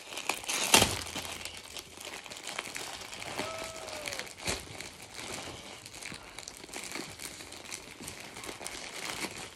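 Plastic mailer bag crinkling and crackling as it is handled and pulled open, with a loud sharp crackle about a second in.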